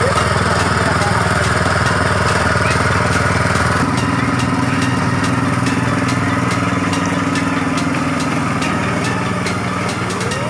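Small petrol engine of a motorised sprayer pump running steadily, pumping disinfectant to the spray hoses; its note shifts slightly about four seconds in.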